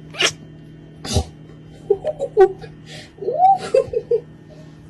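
Tabby kitten hissing and spitting in about four short, sharp bursts, the loudest about a second in, with a few short pitched sounds in between.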